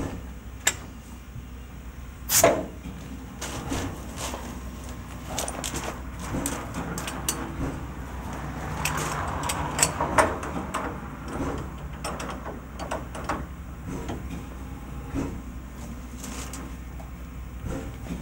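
Metal clanks and knocks of coupling gear and brake and heating hose couplings being handled and hooked up between a steam locomotive and its coach, the loudest clank about two and a half seconds in and two more around ten seconds.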